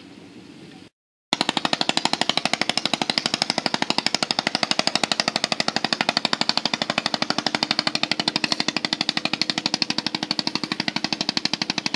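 Boat engine chugging loudly in rapid, even beats. It starts abruptly about a second in, after a short dropout.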